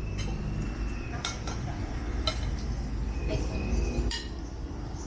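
Metal cutlery clinking against plates as a meal begins: a handful of irregular clinks, some ringing briefly.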